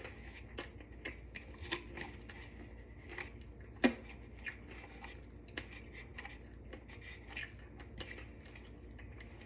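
Light scattered clicks and rustles of food being handled and spread on a plate of nachos, with one louder tap about four seconds in.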